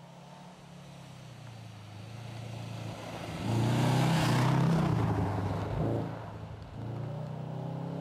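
Subaru Impreza's 2.0-litre naturally aspirated flat-four, breathing through a Legacy exhaust manifold and a Prodrive rear silencer, pulling hard as the car drives up and passes close by. It grows louder, peaks with a rushing hiss of tyres and thrown snow in the middle, dips briefly after about six and a half seconds, then pulls again.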